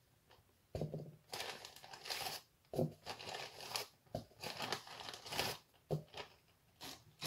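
Clear plastic marshmallow bag crinkling in irregular bursts as hands rummage in it and pull large marshmallows out.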